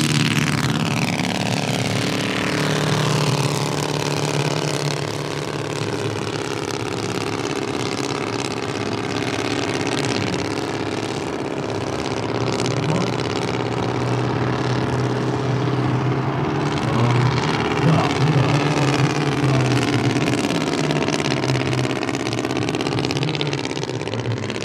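Combustion engine and propeller of a radio-controlled scale Fokker D.V biplane running at flying power as the model takes off and flies overhead. The pitch drops as it passes close by near the start, then the engine note rises and falls as it banks around.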